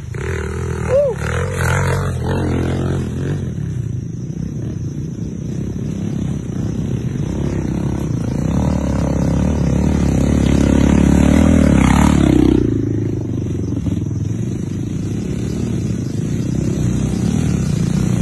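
Dirt bike engines running as riders come along a dirt trail one after another. The sound swells to its loudest about eleven seconds in, drops off sharply a little after twelve seconds, then builds again near the end as the next bike comes closer.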